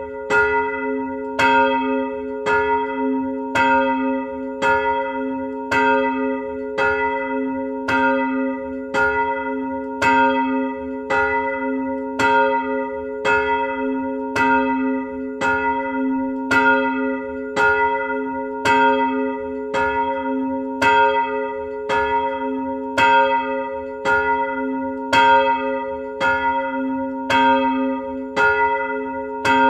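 Electrically swung church bell ringing, its clapper striking evenly about three times every two seconds, each stroke ringing on into the next.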